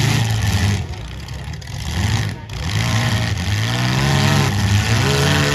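Demolition derby cars' engines revving hard, the pitch rising and falling again and again as the cars drive and push into each other, with brief lulls about a second in and around two and a half seconds in.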